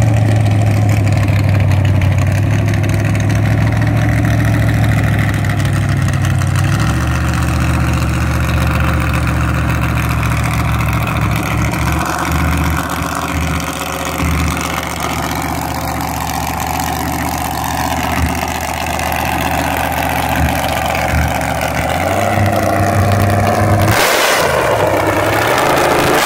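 Dragster's carbureted V8 running through open header pipes at a lumpy idle, its pitch dropping about seven seconds in and then pulsing unevenly. A short burst of hissing noise comes near the end.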